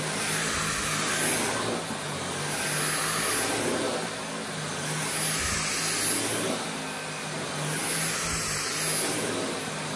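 Dyson V8 cordless stick vacuum running with its motorized brush head: a steady motor whine with a thin high-pitched tone over a rushing airflow, swelling and fading every couple of seconds as it is pushed and pulled.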